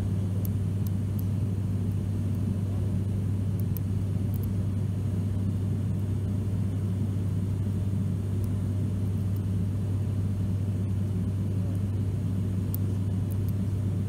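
Cabin drone of an ATR turboprop airliner in flight: a loud, steady low hum with one constant deep tone from the propellers, described as incredibly loud. Faint high ticks sound now and then on top.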